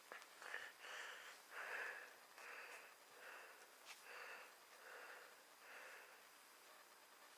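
Faint breathing: about eight short, soft breaths in an even rhythm, roughly one every three-quarters of a second.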